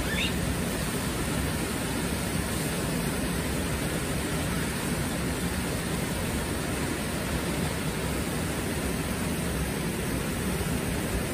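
Steady rush of a fast mountain river running over rocks, with one faint, short rising high chirp just after the start.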